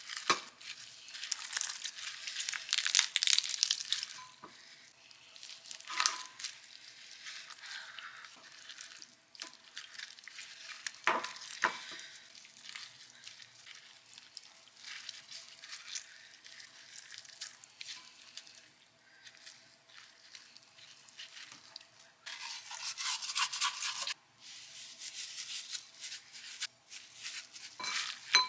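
Cooked chicken being torn apart by gloved hands: wet, sticky, crackly tearing and squelching of skin and meat pulled off the bones, coming in bursts, with a couple of sharper cracks about halfway through.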